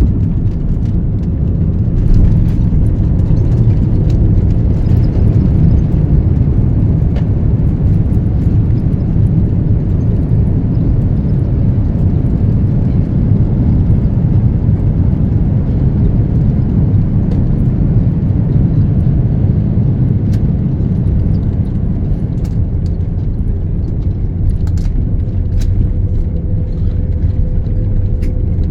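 Steady engine and airflow noise of an airliner as heard inside the passenger cabin, low and continuous, with a few faint clicks.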